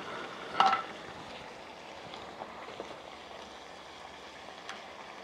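Tortilla cups frying in hot oil in an enamel pot, a steady sizzle. A short clink of a utensil about half a second in.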